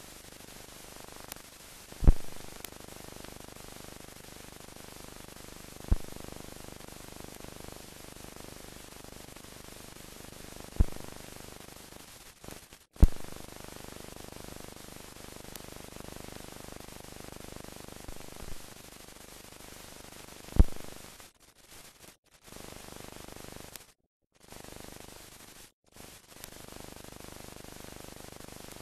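Steady hiss of an old newsreel film transfer, with a sharp click or pop every few seconds and a few brief dropouts to silence.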